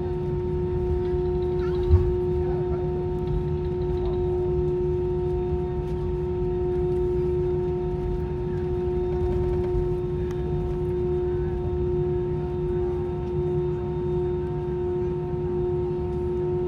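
Airbus A320-232 cabin noise while taxiing: a steady rumble with a held whine from the idling engines. A single thump about two seconds in.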